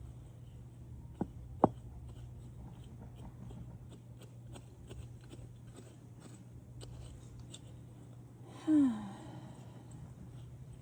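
Soft scratching and scattered small ticks of hand gardening work, planting bean seeds in soil, over a steady low hum. Two sharp taps come about a second and a half in. A short vocal sound falls in pitch near the end.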